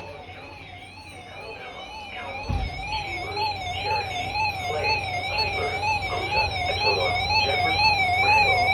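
Weather radio's electronic siren alert warbling, its pitch sweeping evenly up and down about twice a second and growing louder. It sounds as the receiver picks up a Severe Thunderstorm Watch broadcast. A low thump comes about two and a half seconds in, and a low hum runs under it afterwards.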